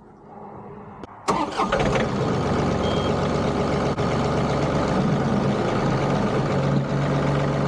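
John Deere 2038R compact tractor's three-cylinder diesel engine revving up sharply about a second in, then running steadily at high throttle under load as the tractor pulls a chain hooked to a fence post.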